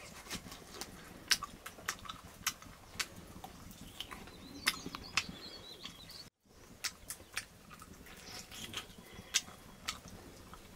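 Close-up chewing and lip-smacking: irregular wet clicks of a mouth eating grilled pork off the bone.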